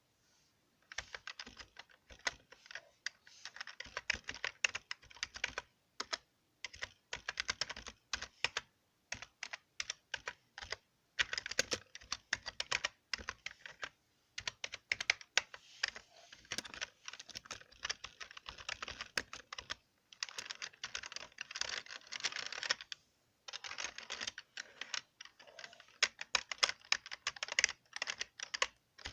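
Computer keyboard being typed on in quick runs of key clicks, with short pauses between the bursts.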